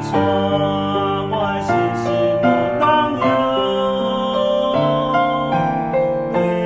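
Piano-led Chinese worship song, with a sung melody over piano chords.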